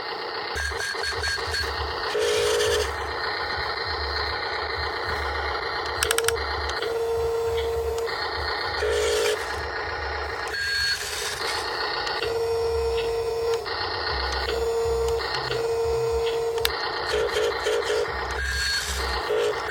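Repeated electronic beeps, some held for about a second and some in quick runs of several a second, over a steady hiss and a low hum that comes and goes.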